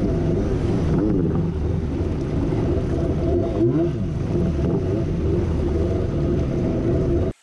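Kawasaki JS550SX stand-up jet ski's two-stroke twin, fitted with a Coffman half-pipe exhaust, running hard under way over rushing water. The pitch rises and falls several times as the throttle changes, then cuts off abruptly near the end.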